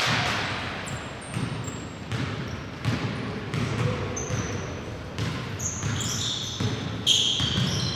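Basketball game play: a ball bouncing repeatedly on a gym floor, with short high squeaks, typical of sneakers on a hardwood court, bunching up near the end.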